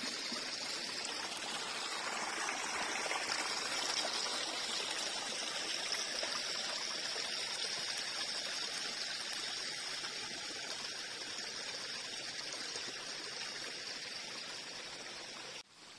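Shallow stream flowing and trickling over rocks, a steady rush of water that drops suddenly in level shortly before the end.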